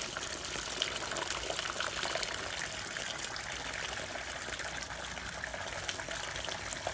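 Spent liquid left in a moonshine still (backset for a sour mash) gushing steadily from an open ball valve in a thick stream into a plastic bucket, splashing onto a foamy surface.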